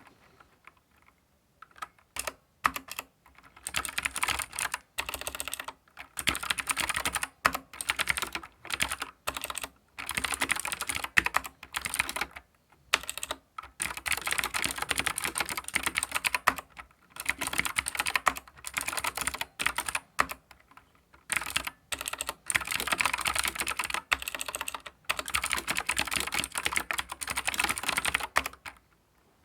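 Typing on a Keychron K4 v2 mechanical keyboard with clicky blue switches: rapid runs of sharp, crisp keystroke clicks in bursts of a second or two, with brief pauses between.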